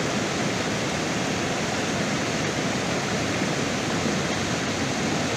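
Swollen, muddy floodwater rushing and churning through rapids, a steady unbroken rush of water noise.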